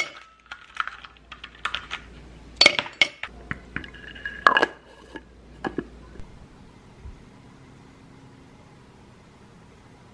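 Dishes and utensils clinking and knocking while iced coffee is made, a quick irregular run of sharp clinks, some with a brief ringing tone, that stops about six seconds in.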